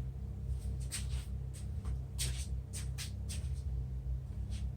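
Rummaging through rope and odds and ends: a scattering of short rustles and light clicks over a steady low hum.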